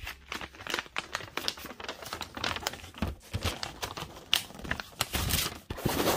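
A folded paper sheet being unfolded and handled close to the microphone: a run of quick, irregular paper crinkles and rustles.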